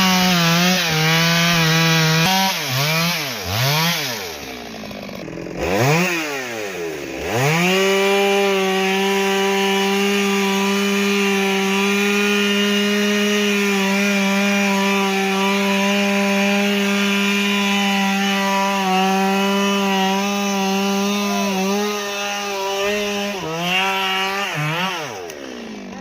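Stihl MS 382 two-stroke chainsaw running at high revs and cutting wood. Its engine note drops and climbs again twice in the first several seconds as the throttle is let off and squeezed, then holds nearly steady through a long cut, and falls away near the end.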